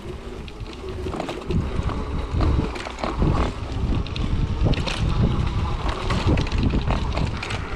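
Wind buffeting the microphone over the low rumble of a 20 x 4 inch fat tyre rolling over a rough forest dirt trail, with irregular knocks and rattles from the wheelchair's frame and suspension over bumps.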